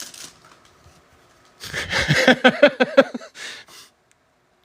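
A man's short breathy laugh, a run of quick pulsing vocal beats about two seconds in, followed by a brief exhale.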